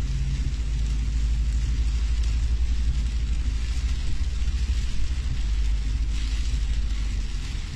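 Strong storm wind buffeting the microphone: a heavy, steady low rumble with a hiss above it.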